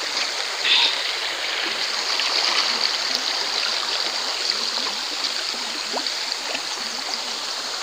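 River water flowing: a steady sound of running water.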